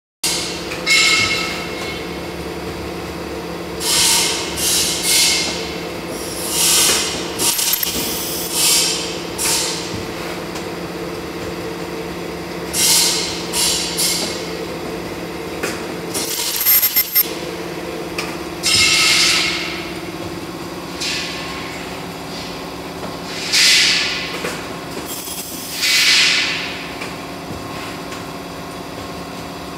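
Automatic ribbon bow-making machine running: a steady motor hum under repeated short hisses of air from its pneumatic cylinders, with a few sharp clacks of the mechanism about halfway through.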